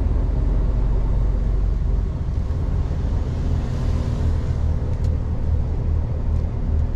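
Heavy truck's diesel engine running with a steady low drone, heard from inside the cab, with a single light click about five seconds in.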